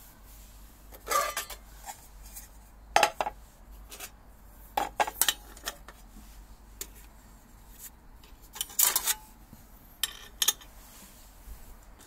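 Metal parts of an Optimus 99 camping stove clinking and clanking as they are handled, in several short separate bursts.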